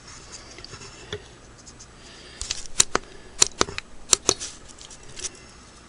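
A handful of sharp clicks and light taps from handling a vintage Singer 401A sewing machine's back panel and electric receptacle, bunched together about halfway in.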